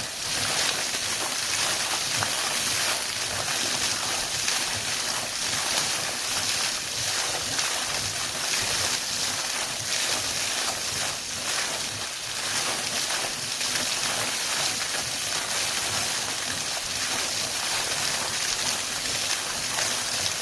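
Steady rushing hiss of compressed air and water gushing out of a borewell as it is flushed clean with an air compressor.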